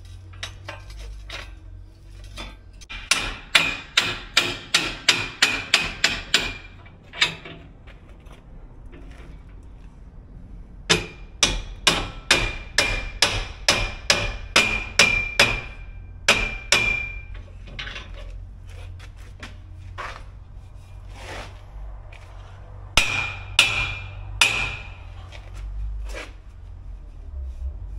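Hammer striking the collar of an adjustable steel prop (Acrow prop), knocking it up tight under the wall. There are three runs of quick, ringing metal blows, about three a second, starting about three seconds in, about eleven seconds in and near the end.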